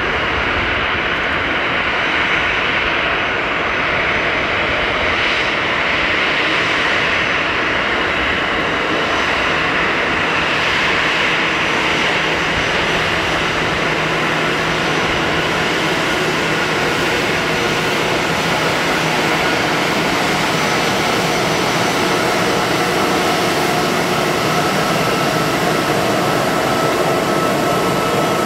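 Airbus A320-200 jet engines turning at taxi power as the airliner rolls past: a steady rush of engine noise, with a whine that grows clearer toward the end.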